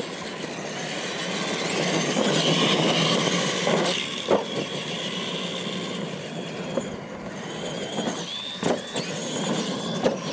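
Two R/C monster trucks racing on a dirt track: their motors and drivetrains whining up and down in pitch as they accelerate and turn, tyres scrabbling on dirt, with a few sharp knocks about four seconds in and again near the end.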